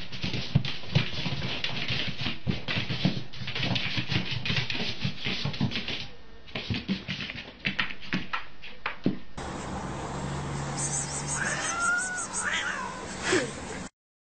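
Busy rustling and clicking for about nine seconds, then a different clip in which a cat meows a couple of times near the end.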